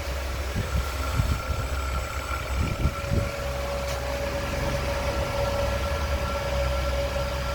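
Electric motor and ABB variable frequency drive running on a bench test, giving a steady whine at constant pitch over a low rumble, with a few irregular knocks.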